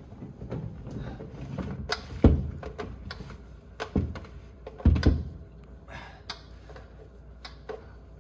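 A few sharp thunks and knocks, the loudest about two seconds in and others about four and five seconds in, from handling the plastic whole-house water filter housings and cartridges.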